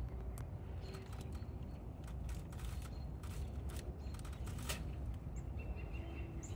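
Faint outdoor background with a steady low rumble and scattered small clicks and crackles, plus a couple of faint high chirps near the end.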